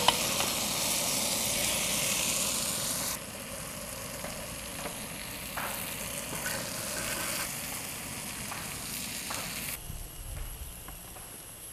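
Grey mullet pieces sizzling as they fry in hot oil in a wide pan (uruli). The loud sizzle drops sharply about three seconds in, leaving a fainter hiss with a few light taps.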